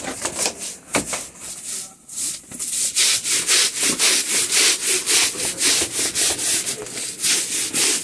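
A long-handled scrubbing brush scrubbing back and forth over a wet aluminium checker-plate floor: a rasping stroke about four times a second, sparser for the first few seconds.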